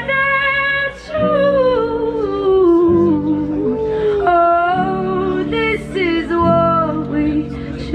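Live singing over strummed acoustic guitar chords: a voice holds and bends long notes in a melodic run with few or no clear words, while the chords change every second or two.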